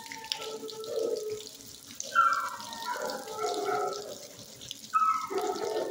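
Dogs in a shelter kennel howling and yelping, two falling cries about three seconds apart, echoing off the hard kennel walls.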